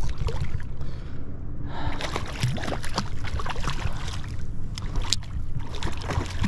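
Hooked jack crevalle thrashing at the surface, with scattered sharp water splashes over a steady low noise.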